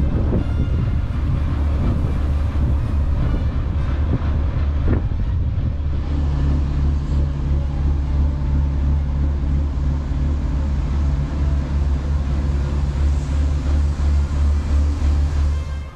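Dutch barge's diesel engine running at a steady low throb while the boat passes under a bridge, its note filling out about six seconds in.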